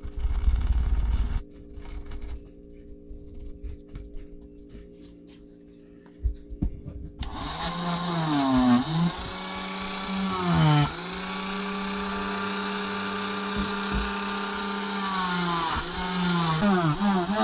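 Steel wool scrubbing a zinc diecast casting for about a second and a half, then handling clicks. About seven seconds in, a handheld rotary tool starts and runs with a steady whine, its pitch dipping each time the spinning bit is pressed against the metal casting.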